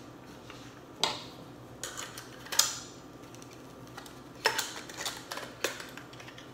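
Pliers working at a small metal piece inside a vintage camera body: a few sharp metal clicks and short scrapes, about a second in, around two and a half seconds, and again near five seconds.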